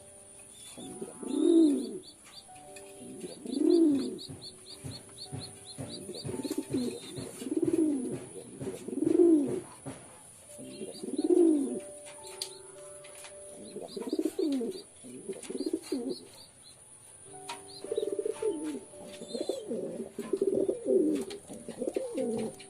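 Domestic pigeons cooing: a series of low, throaty coos roughly every two seconds, coming in a quicker run near the end.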